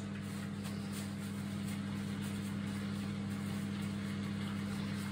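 A bathroom tap running steadily into a basin over a steady low hum, with a few faint rustles of a paper towel as hands are dried.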